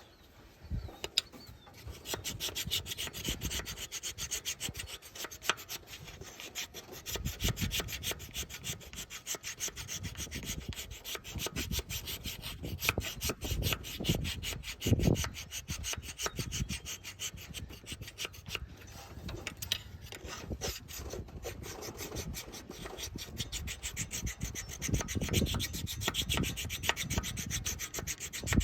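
Hand file rasping back and forth across the thermostat housing gasket surface of a 460ci Ford engine, in steady repeated strokes starting about a second in. The surface is being filed flat and smooth so the new gasket can seal against the leak.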